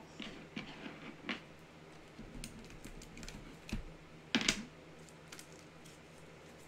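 Light clicks and taps of a plastic chalk palette case being handled and set down on a tabletop, with one louder clatter about four and a half seconds in.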